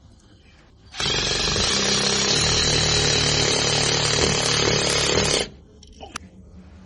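Electric drill boring into the wall for a curtain-holder wall anchor: one loud, steady run of about four and a half seconds that starts sharply about a second in and stops suddenly.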